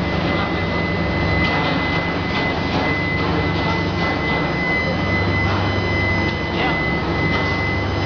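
Steel-melting furnace running: a steady noise with a constant high-pitched whine and a low hum underneath.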